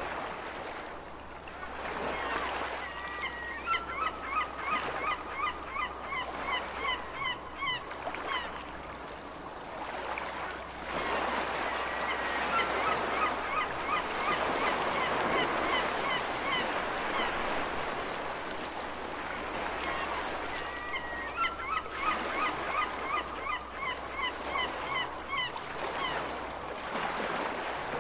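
Seagulls calling in rapid strings of short yelping cries, in three bouts of several seconds each, over the steady wash and surge of ocean waves.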